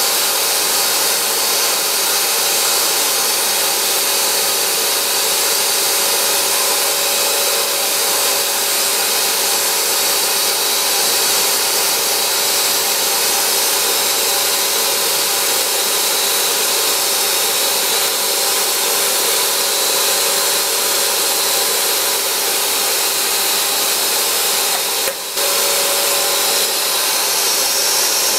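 CNC milling machine running, its spindle and small end mill cutting a slot in a plate: a steady high hiss with several steady tones held throughout. The sound dips sharply for a moment about 25 seconds in.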